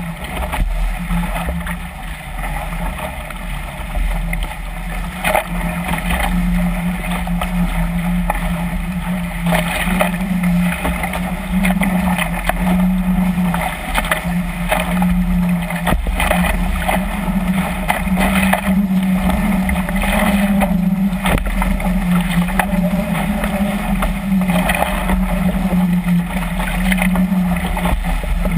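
Water rushing and splashing against the hulls of a catamaran sailing fast through choppy waves, with wind buffeting the microphone and a steady low hum underneath. Bursts of spray come every second or two as the hulls slam through the waves.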